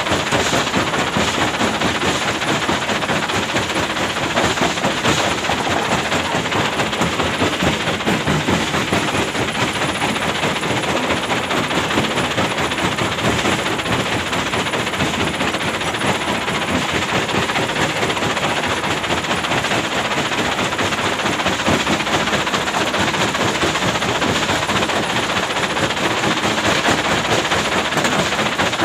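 Hyundai excavator's diesel engine running steadily with a dense, fast clatter.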